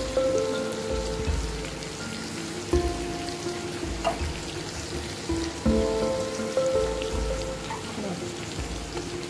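Chicken frying in a pan with a steady sizzle as sliced onion and capsicum are tipped in. Background music plays long held notes that change about every three seconds.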